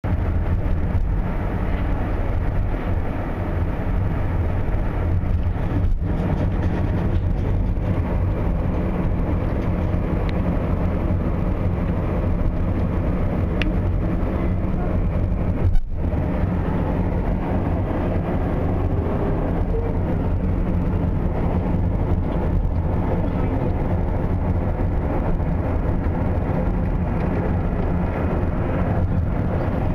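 Steady road and engine noise inside a moving car's cabin, heavy and low, with a single brief click a little past halfway.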